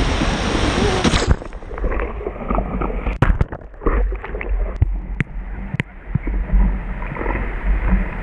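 Ocean surf and wind noise, which turns abruptly duller about a second in. Gurgling and splashing water with scattered sharp clicks and a low rumble follow.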